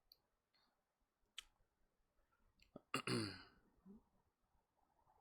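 A few faint, sharp clicks, then about three seconds in a person briefly clears their throat.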